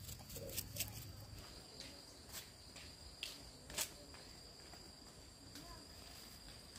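A faint, steady high-pitched insect trill, with a handful of sharp light clicks in the first four seconds.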